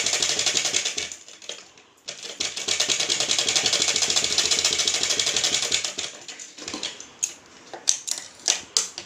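Black straight-stitch sewing machine running a seam in rapid, even stitches, with a brief pause about a second in, and stopping a little before six seconds in. A few sharp scissor snips follow near the end.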